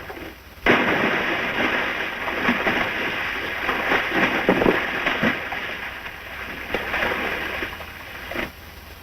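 A sudden splash as a person falls into water, then several seconds of splashing and sloshing that gradually die away.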